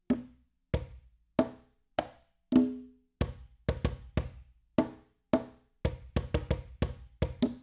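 Sampled low conga, an 11 3/4-inch LP Galaxy Giovanni Series conga, struck one stroke at a time through its articulations. Some strokes ring briefly with a clear tone and others are short and dead. In the second half the strokes come quicker, in double and triple hits like flams.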